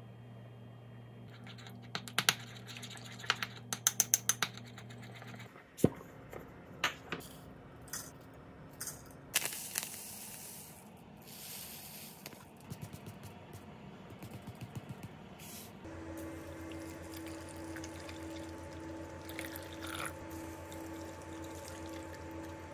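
Kitchen food-preparation sounds: a quick run of light clinks and knocks of dishes and utensils, then two short hissing bursts, over a low steady hum.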